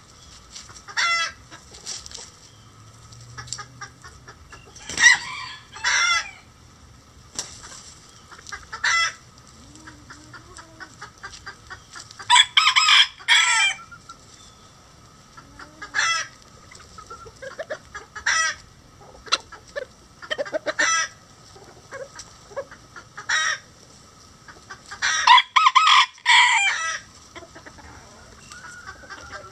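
Bantam chickens clucking, with short calls every second or two. A rooster crows twice, about halfway through and again near the end; these are the loudest sounds.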